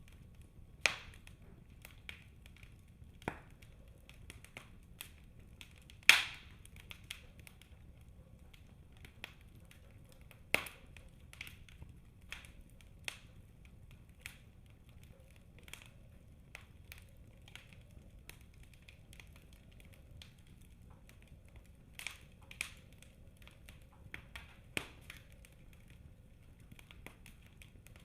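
Wood fire burning in a fireplace: irregular sharp crackles and pops over a faint low rumble, with the loudest pops about six and ten seconds in.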